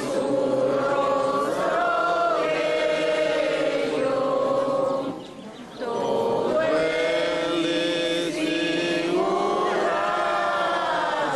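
Voices singing a slow religious hymn, holding long notes and sliding slowly between them, with a short break about five seconds in.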